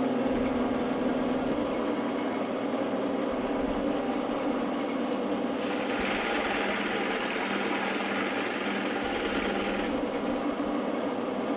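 Variable-speed drill press motor running steadily at a lowered speed for a larger bit. About halfway through, a louder, higher cutting noise joins it for about four seconds as the bit drills into the board, then drops away and the motor runs on.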